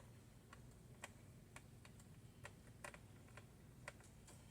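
Faint, irregular small clicks, two or three a second: a screwdriver working at small screws in a laptop's plastic base.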